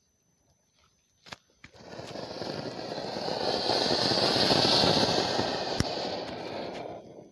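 An anar (flower-pot fountain firework) burning under a steel amplifier case: after a sharp click about a second in, a loud hissing, crackling rush of sparks starts, swells to a peak midway, and stops just before the end.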